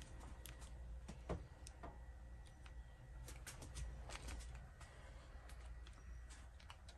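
Quiet room tone in a small room: a low steady hum and a faint thin high tone, with scattered faint clicks and ticks and one small knock about a second in.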